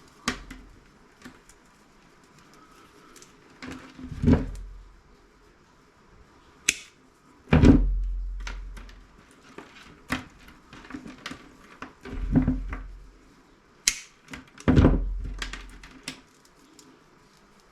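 Irregular clicks and knocks of scrap parts and tools being handled while a CRT monitor is taken apart, with four heavier thuds as pieces are set down or dropped.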